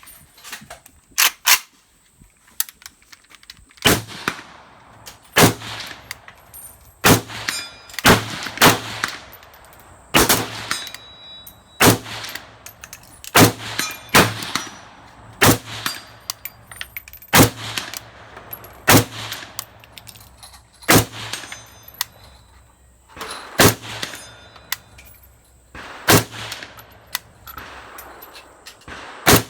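Rifle fired shot by shot, about twenty single shots at an uneven pace, one to two and a half seconds apart.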